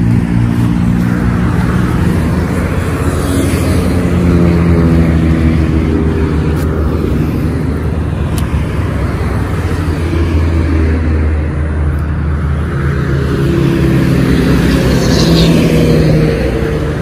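Steady road traffic from a nearby highway: vehicle engines and tyre noise running continuously, swelling and easing as vehicles pass.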